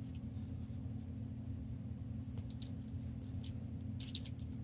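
Tactical pen scratching across paper in short, faint strokes and light clicks, over a steady low hum; the pen writes poorly.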